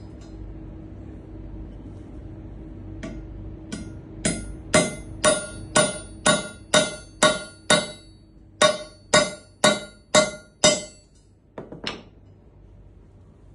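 Repeated metal-on-metal strikes as a finka knife is used to chop a steel nail, about two hard blows a second, each with a short ringing clang. A few lighter taps come before them and two after.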